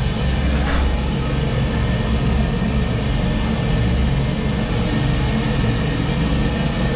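Oilon oil burner on a heating boiler running steadily: a loud low rumble with a faint steady high whine over it. A light click sounds just under a second in.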